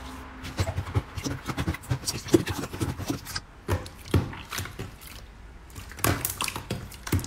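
A hand pressing and kneading clear slime flat against a tabletop, making a dense run of irregular sticky clicks and pops, with a short lull about two thirds of the way through.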